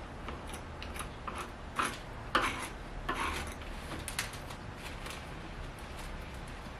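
Hands working at a Porsche 924's door sill trim and carpet: a series of short scrapes and rustles with scattered clicks, the loudest few bunched together in the middle.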